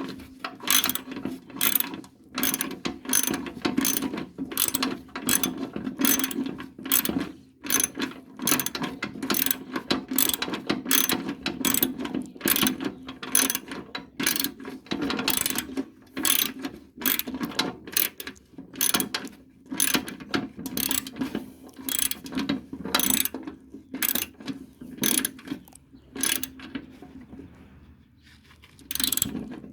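Hand socket ratchet clicking in quick repeated strokes, about two a second, as a nut on the mower deck is worked on. It pauses briefly near the end.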